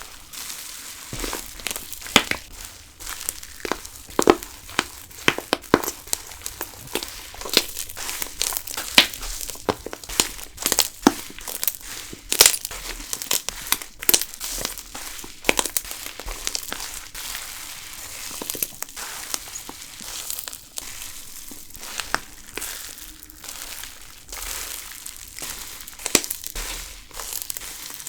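Taiwan castella slime being pressed and worked by hand, giving a fizzy sizzle of fine crackles and pops with frequent irregular sharper snaps.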